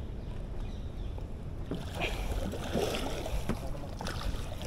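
Water splashing and sloshing, starting about two seconds in, with scattered sharp splashes over a steady low rumble.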